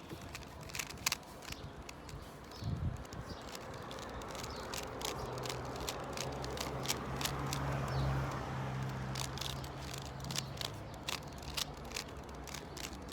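A Rubik's Cube being turned rapidly by hand, its plastic layers clicking and clacking in quick, irregular runs.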